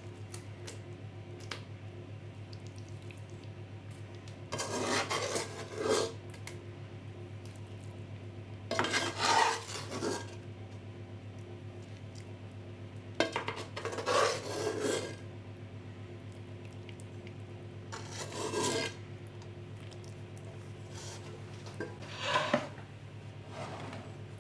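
A kitchen utensil scraping and clinking against a cast iron pan as cooked apple pieces are set in place, in five short bursts a few seconds apart. A steady low hum runs underneath.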